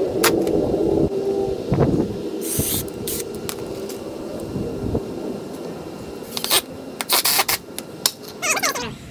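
An electric drill running for about a second while pre-drilling pilot holes in wood, then stopping, followed by scattered clicks, knocks and a brief scrape as the wooden pieces and tools are handled.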